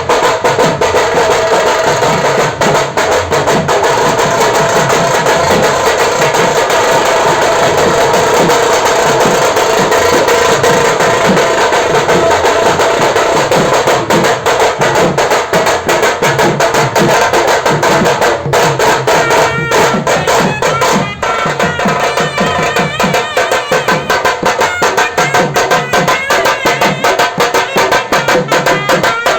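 Indian folk-style devotional music with a fast, steady hand-drum rhythm and a melody over it; the melody turns brighter about two-thirds of the way through.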